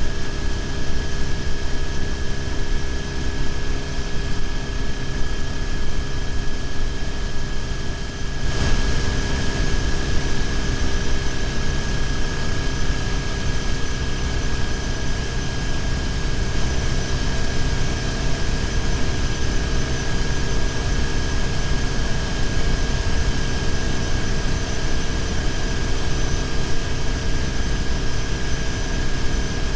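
BMW R1150GS boxer-twin engine running steadily at cruising speed under heavy wind and road rush on the bike-mounted microphone. The wind hiss jumps louder about eight and a half seconds in.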